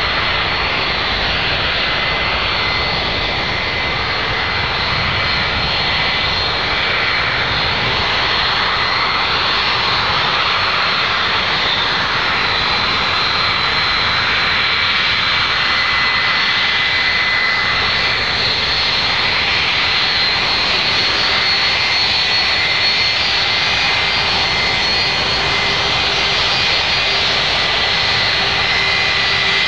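A Boeing 757-200's two turbofan engines at low taxi thrust as the airliner taxis close by. It is a steady jet whine, with a few held high tones over a rush of air, and the power stays level throughout.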